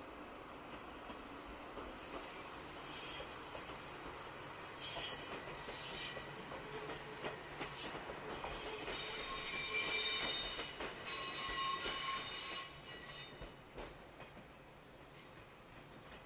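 Steel train wheels squealing in a high-pitched metallic whine as a slow-moving train rolls across yard track. It starts about two seconds in and comes in waves of several ringing tones, then dies down a few seconds before the end.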